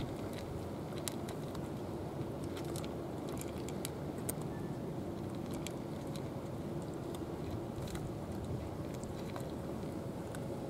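Two cats chewing dry kibble: a scatter of small, sharp crunches at irregular intervals, over a steady low background rumble.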